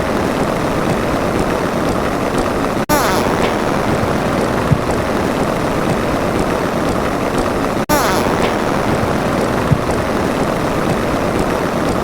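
Loud, steady rushing noise: a looped sound effect that cuts out for an instant and restarts about every five seconds.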